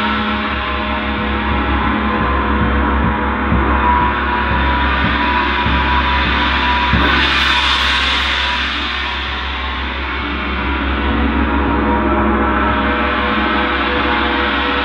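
Two hanging gongs, a Paiste gong and a textured gong beneath it, struck repeatedly with a soft mallet, building a dense, sustained ringing wash. The sound grows brightest about halfway through.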